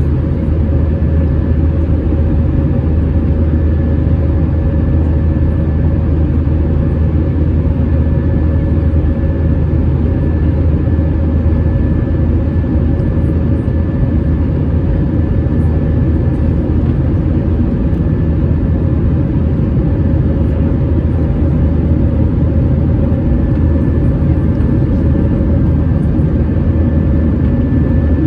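Steady cabin noise inside an Airbus A320 airliner: a deep, unchanging drone of jet engines and airflow, with faint steady whining tones above it.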